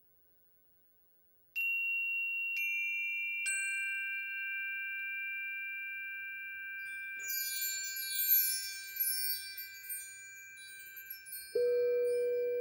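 Metal chime bars struck three times with a mallet, each note lower than the last and each left ringing. About halfway a flurry of high tinkling chime notes follows, and near the end a crystal singing bowl is struck once, giving a lower ringing tone.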